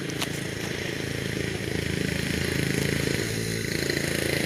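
A small engine running steadily, growing a little louder over a few seconds.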